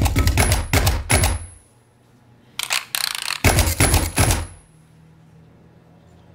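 Rubber stamps and office equipment beaten as percussion: fast, rhythmic stamping and clicking, a short burst of noise, then another run of stamping, with a high ringing tone held twice. The beating stops about four and a half seconds in, leaving a low hum.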